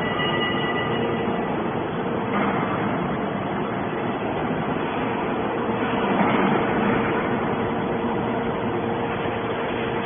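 Hydraulic scrap metal baler's power unit running: a steady mechanical drone with a constant hum, swelling slightly about six seconds in.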